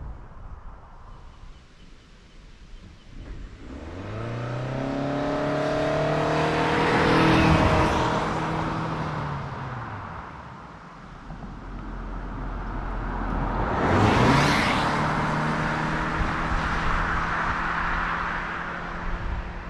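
Ford Escape SUV's four-cylinder petrol engine under hard acceleration, its note climbing and then holding steady as the car passes loudly about seven seconds in, the pitch dropping away after. A second pass-by with a burst of tyre and wind noise comes about fourteen seconds in, followed by a steady engine note.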